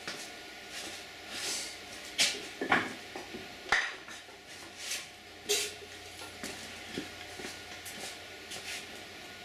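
Scattered metallic clanks and clinks of a engine block and tools being handled on a workbench, about half a dozen separate sharp knocks with the loudest about two to four seconds in.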